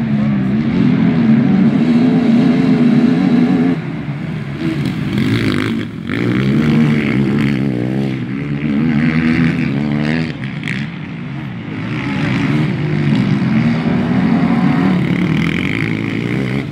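Several racing quads (ATVs) revving hard as they pass. Their engine notes rise and fall with the throttle, swelling and fading as the bikes come and go.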